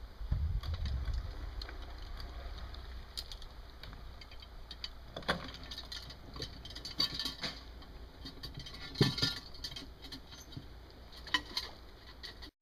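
Scattered knocks and rattles of gear in a boat, loudest about nine seconds in, over a low rumble of wind on the microphone in the first second or two.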